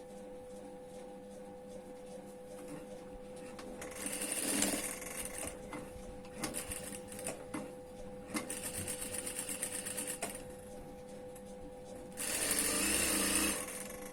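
Sewing machine stitching a collar piece in several short runs, starting and stopping, with the longest and loudest run near the end. A steady hum runs underneath.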